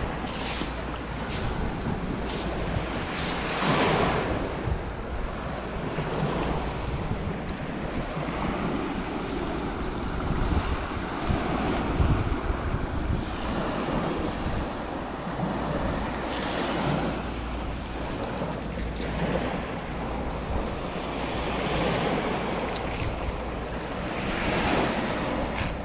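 Sea surf washing onto a sandy shore, its hiss rising and falling in slow surges, with wind buffeting the microphone.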